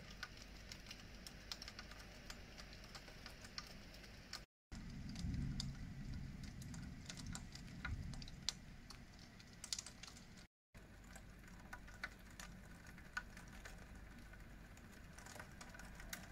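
Raindrops tapping irregularly on a window pane over a steady hiss of rain, with a low rumble between about five and eight seconds in. The sound drops out briefly twice.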